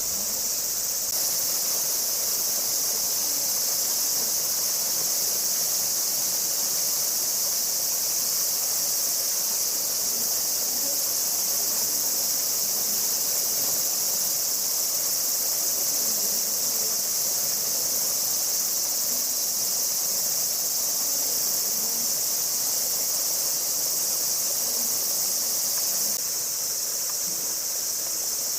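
A chorus of summer cicadas droning: a steady, continuous high-pitched buzz that eases slightly near the end.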